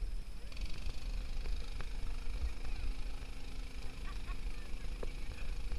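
Lawn mower engine driving a homemade boat, running at a steady pitch that comes in about half a second in, over a low wind rumble on the microphone.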